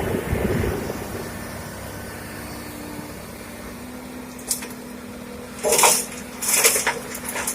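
Excavator working stones, its diesel engine running with a steady hum and a surge in the first second. Then a short clatter and two loud bursts of stones clattering against steel, about two-thirds of the way through, as rock is loaded into a dump truck.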